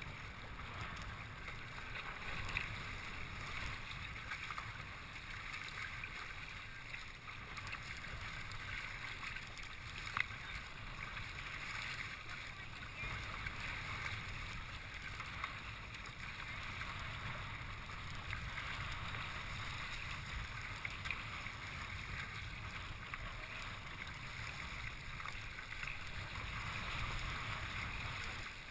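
Steady water noise around a moving kayak, with a low rumble of wind on the microphone and a couple of faint knocks.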